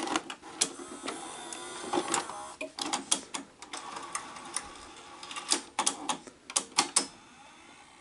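NEC VC-N20EU Betamax VCR taking in a Beta cassette and loading the tape: the cassette is pushed into the slot and a front-panel button is pressed, then comes a run of mechanical clicks and clunks with brief motor whirring. It goes quiet about seven seconds in.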